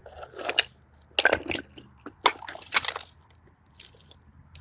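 Crunching and rustling of leaves and twigs on the forest floor, in three short bursts of crackling.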